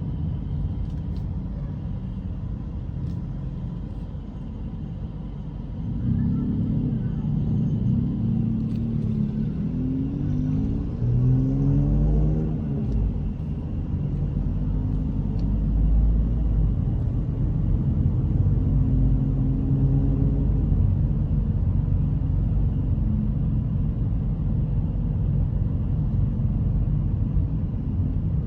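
Street traffic rumble. Between about six and thirteen seconds in, a vehicle engine grows louder and its pitch rises and then falls as it passes.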